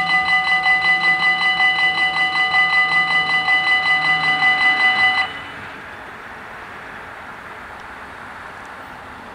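Level-crossing warning bells ringing rapidly, about five strokes a second, as the crossing barriers come down. They stop suddenly about five seconds in, once the barriers are down, leaving only faint steady outdoor traffic noise.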